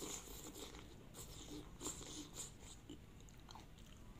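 A person slurping up a mouthful of yellow chicken noodles served without broth, a run of short wet sucking bursts over the first two seconds or so, then quieter chewing with the mouth closed.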